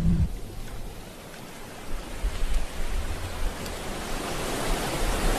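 Water of a small waterfall rushing and splashing down over rocks, a steady hiss, with wind buffeting the microphone in low, uneven gusts.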